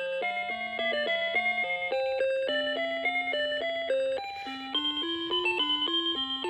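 Seiko Musica melody alarm clock playing one of its built-in electronic tunes: a quick melody of clean, beep-like notes in several parts over a simple bass line.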